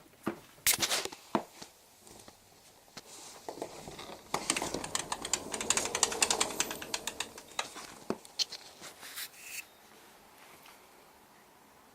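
Rustling and rattling of a flexible mesh flap in a window screen, with sharp clicks, as it is pushed through; the rustling is densest in the middle and a few clicks come near the start and near the end.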